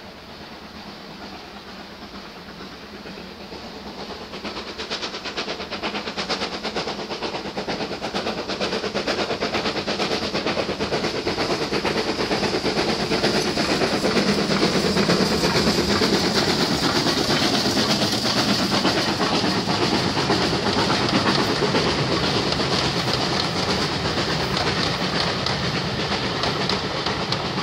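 Heritage steam locomotive hauling a train of coaches past. It grows steadily louder over the first dozen seconds as it approaches, and is loudest as it goes by. Then the coaches' wheels clatter over the rail joints as they pass.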